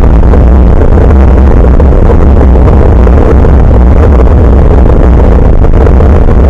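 Loud, steady wind rumble and road noise from a moving bicycle, picked up by a Nikkei Extreme X6 action camera's built-in microphone hanging from the handlebars; a deep rumble dominates.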